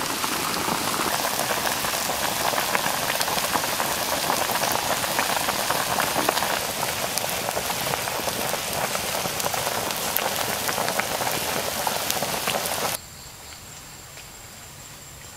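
Chicken wings in a thick sauce sizzling and bubbling in a frying pan over a wood fire, a steady hiss full of small pops and crackles. About two seconds before the end it cuts off suddenly to a much quieter background with a faint steady high-pitched tone.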